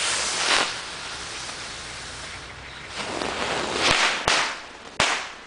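Small ground fireworks going off: smoke bombs hissing as they pour out smoke, and a toy tank firework spraying sparks. It ends in three sharp pops near the end, the last one the loudest.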